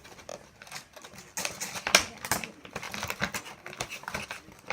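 Small plastic kit items being handled, rapid clicking and rustling with a sharper knock about two seconds in.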